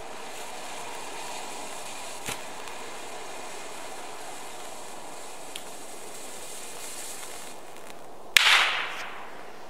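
Cracker fountain firework burning with a steady hiss and a couple of small pops, then one loud bang about eight seconds in that fades over most of a second.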